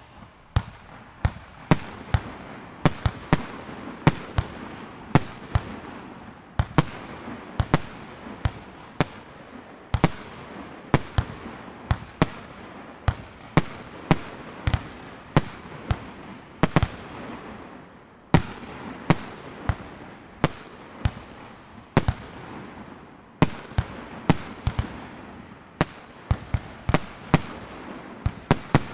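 A 36-shot 65 mm ball-shell firework battery (Kugelbombenbatterie) firing: a rapid string of sharp bangs, about two a second, as shells launch and burst, with noise filling the gaps between them.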